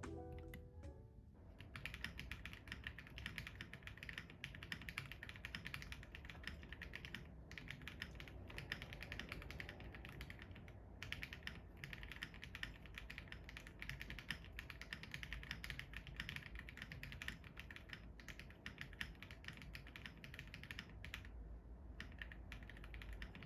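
Fast, continuous typing on a Royal Kludge M75 mechanical keyboard with Honeymilk keycaps, with short pauses twice. Background music is heard briefly before the typing starts, about a second and a half in.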